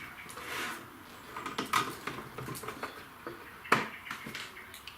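Handling noise from a CCTV DVR's casing being worked loose: scattered light clicks and knocks, with one sharper knock nearly four seconds in.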